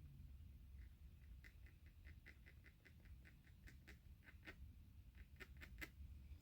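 Faint series of light, quick clicks, several a second and irregularly spaced, starting about a second and a half in: small tool or part handling at a workbench, as when turning a spark plug into a repaired thread.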